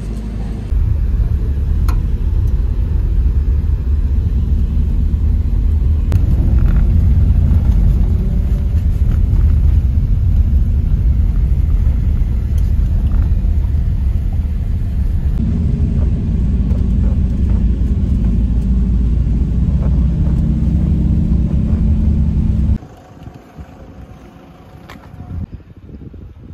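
Steady low rumble of a vehicle driving on the road. It cuts off suddenly near the end to a much quieter background.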